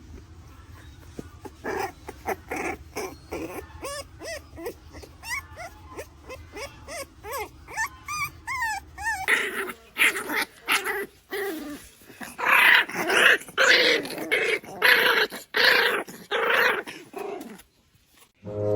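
Puppy growling and yipping in a rapid series of short, whiny calls that bend up and down in pitch. About halfway through, the calls turn into louder, harsher barks.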